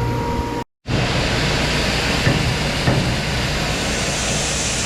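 Steady loud rushing roar of running farm machinery, with a low hum under a strong hiss, cut off by a short dead gap under a second in and then carrying on.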